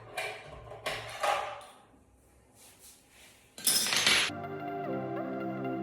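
Small clicks and clatters of AA batteries being handled and pressed into the plastic battery compartment of an exercise machine's digital monitor, with a short loud rattle about three and a half seconds in. Soft background music with held synth notes starts just after it.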